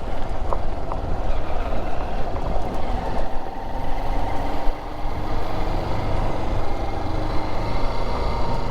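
Single-cylinder Honda XR dual-sport motorcycle running steadily while being ridden on a dirt road, with a dense low rumble under the engine note. The level dips briefly a little before the middle.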